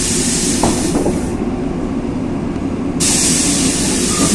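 LiAZ 6213.22 articulated bus with its engine running under a low rumble, and long hisses of compressed air from its pneumatic system that cut in and out sharply: one stops about a second and a half in and another starts about three seconds in.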